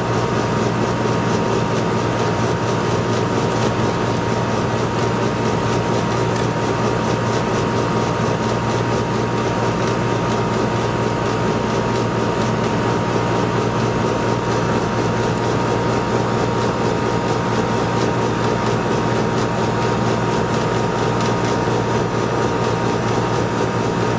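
Outdoor air conditioner condenser unit running: a loud, steady low hum with a faint steady high tone above it.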